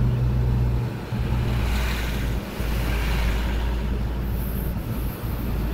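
Road noise inside a moving vehicle's cab: a steady low engine hum under tyre and wind rush, the rush swelling for a couple of seconds midway.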